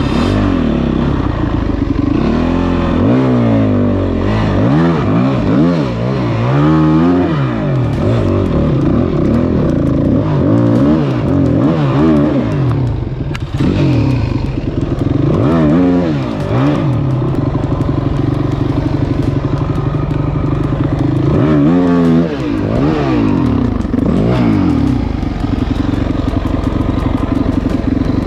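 2006 Yamaha WR450F's single-cylinder four-stroke engine running, revved in repeated short throttle bursts, about a dozen rises and falls in pitch, with steady low running in between.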